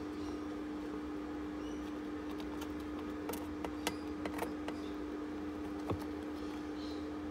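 A steady low electrical hum, with a handful of light clicks and taps about midway from feeding tongs being handled as they hold a rat to a python.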